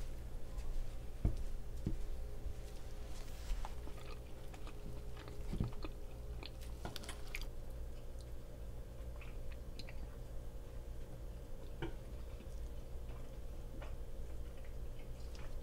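Metal fork pressing and cutting into a dense, chewy brownie on a wooden board, with scattered light clicks and taps over a steady low hum.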